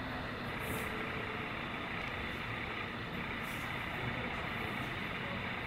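Steady outdoor ambient noise, a low rumble under an even hiss, with a few faint hissy swells and no distinct events.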